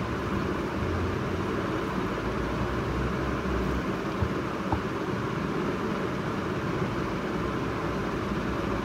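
Steady, even background noise with no speech, like a fan or air conditioner running, and two faint clicks about four and a half seconds in.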